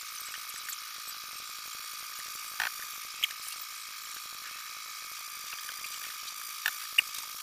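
A metal fork clinks a few times against a metal bowl while sliced bananas are coated in thick batter, over a steady high hiss with a faint whine.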